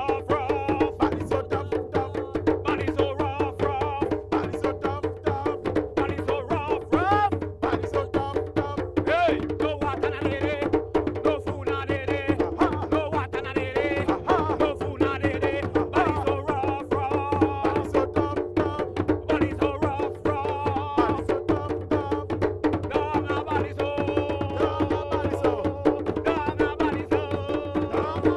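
A group of hand drums played together, bass, rhythm and solo drums, keeping up a steady, fast drum rhythm with many sharp strokes.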